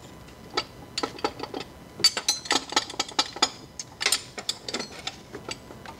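Ratchet wrench clicking and metal tools clinking while a stubborn bolt on an engine bracket is worked loose. A few scattered clicks at first, then quick close runs of clicks from about two seconds in.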